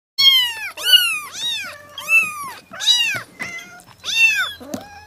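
A cat meowing repeatedly: about six high-pitched meows, each rising then falling in pitch, with short pauses between them.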